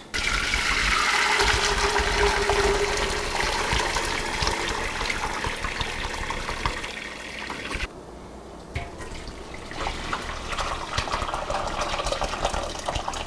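Bone broth being poured from the stockpot through a strainer, a steady gushing splash of liquid. It eases off about eight seconds in and then carries on more quietly.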